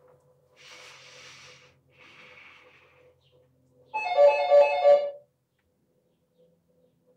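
Electronic doorbell chime ringing for about a second, several bright notes pulsing three times, about four seconds in. Before it come two soft hissing noises.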